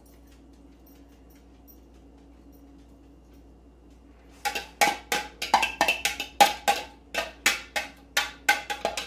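A fork tapping and scraping inside a glass mixing bowl, a quick run of sharp clinks about four a second starting about four and a half seconds in, as the last of the beaten egg is knocked out over the casserole.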